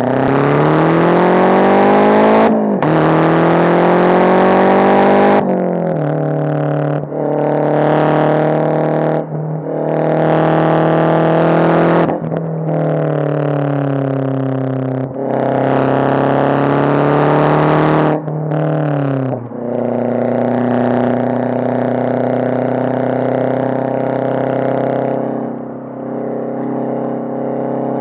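MazdaSpeed 6's turbocharged 2.3-litre four-cylinder, loud through a catless downpipe and a single-exit exhaust with only a resonator. It accelerates hard through several gears: the engine note climbs and drops sharply at each shift, falls off once as the car slows, then holds a steady cruise before easing off near the end.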